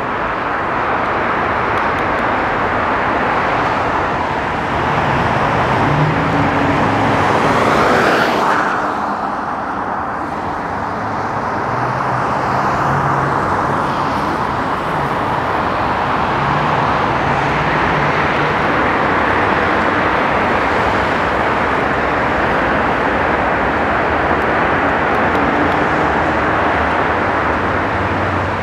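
Steady city freeway traffic: cars' tyres and engines running continuously, with one louder swell about eight seconds in.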